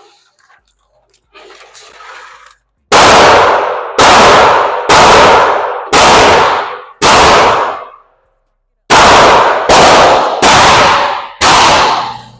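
Gunshots echoing at an indoor range: five shots about a second apart, a short pause, then four more slightly quicker, each with a long ringing decay.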